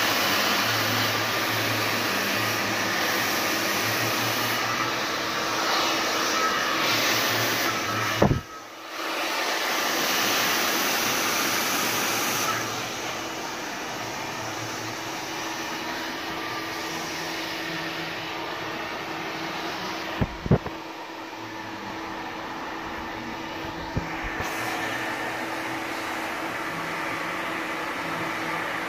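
Hand-held hair dryer blowing steadily during a straightening blow-dry with a round brush. It cuts out for a moment just after a click about eight seconds in, and runs a little quieter from about twelve seconds in, with a few sharp clicks later.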